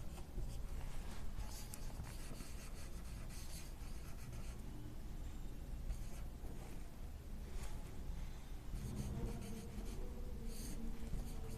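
Marker pen writing on a whiteboard: faint, short, irregular strokes as words are written out.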